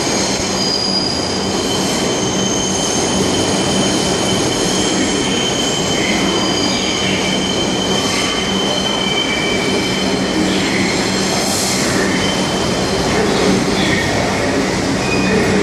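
New York City subway train's steel wheels squealing in the tunnel: several high, steady squealing tones held over a constant loud rumble of the running train.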